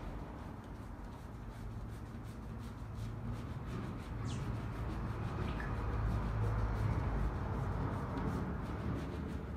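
Fingers scrubbing shampoo lather into a man's hair and scalp, a soft steady rubbing, over a low steady hum. A brief high squeak comes about four seconds in.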